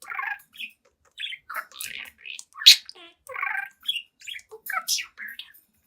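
Young pet budgie chattering: a quick run of short chirps, warbles and mumbled trills, with a sharp high squeak about 2.7 s in.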